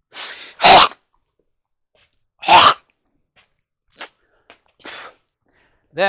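A man sneezing twice, about two seconds apart, each a sharp burst after a short intake of breath; a few faint clicks follow.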